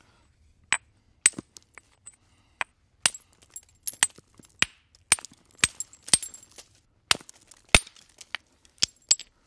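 Stone knapping by hard-hammer percussion: a rounded hammerstone strikes the edge of a hand-held stone flake in a run of sharp clinking blows at uneven intervals, about two a second, some with a brief high ring. Each blow knocks flakes off both faces to shape the stone into a bifacial tool, the start of a hand axe.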